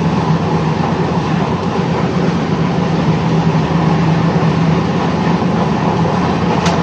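Steady rumble and hum of an Indian Railways passenger train running, heard inside the coach. A brief click comes near the end.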